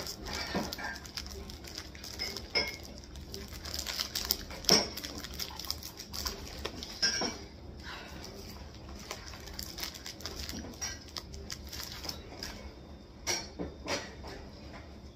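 Scattered clicks, rustles and crunches of a snack package being opened and cream-filled biscuit sticks being eaten, with a few louder knocks.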